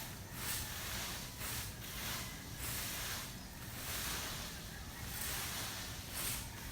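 A rake scraping over grass and soil in repeated strokes, irregularly about once a second.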